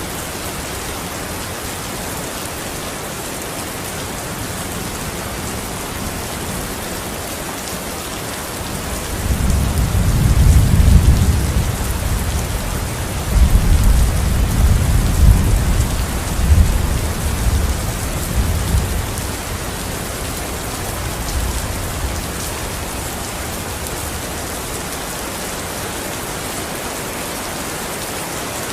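Steady rain falling, with a long low rumble of thunder that starts about a third of the way in, swells twice and dies away some ten seconds later.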